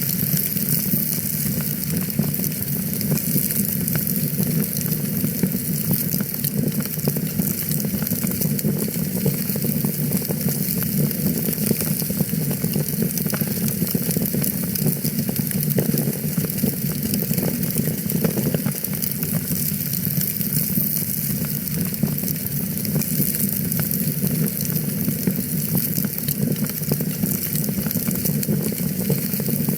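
Wood fire in a fireplace crackling steadily: many small pops and snaps over a constant low rumble of the flames.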